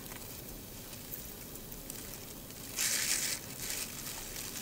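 A plastic bag crinkling as it is handled: one short bright rustle about three seconds in, with a couple of fainter rustles after it.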